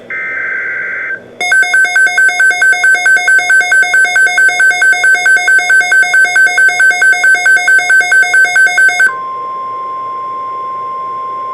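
NOAA Weather Radio emergency alert tones: a brief end of a warbling SAME data burst, then rapid pulsing electronic alert beeps, about four a second, for some seven seconds. About nine seconds in the beeping stops and the steady 1050 Hz weather radio warning alarm tone sounds.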